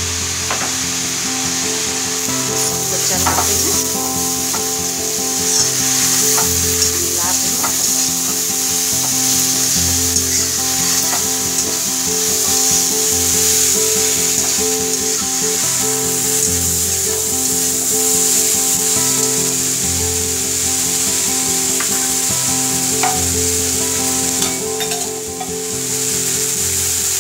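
Shredded cabbage and carrot sizzling in a hot black kadhai as they are stir-fried with a steel spatula, which scrapes and clicks against the pan now and then. Background music with held bass notes plays underneath.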